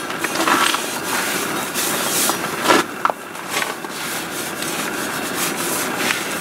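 Rag rubbing over a metal propeller blade in an acetone wipe-down, with a few sharp clicks and knocks from handling.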